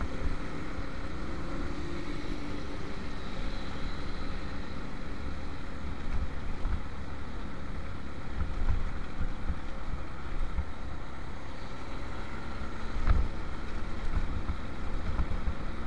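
Motorcycle engine running while riding along a road, under a low rumble of wind on the microphone, with a brief bump about 13 seconds in.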